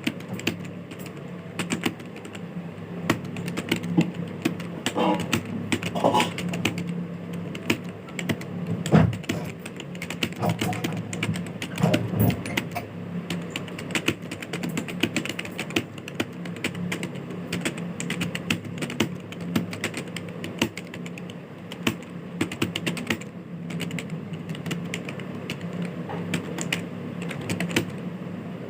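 Fast, continuous typing on a computer keyboard, a dense stream of key clicks from a typing-speed test at about 49 words a minute.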